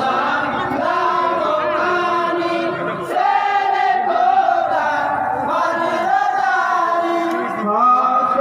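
A group of men singing a Bengali Islamic salam song in chorus, led by a singer on a microphone, with long held notes.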